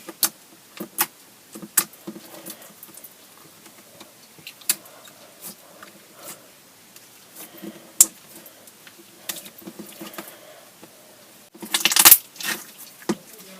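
Clear glitter slime being stretched and squeezed by hand, giving scattered sharp sticky clicks and pops, with a dense burst of crackling about twelve seconds in.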